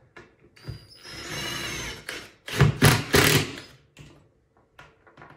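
Cordless drill-driver running in short runs as it drives pocket-hole screws into a glued drawer box. There is a steady whine at first, then a few loud sharp bursts about halfway through as the screws pull home.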